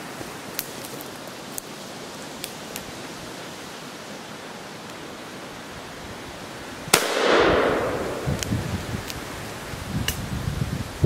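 A single .410 shotgun shot about seven seconds in: a sharp crack followed by a long echo fading through the woods. Soft low thumps follow.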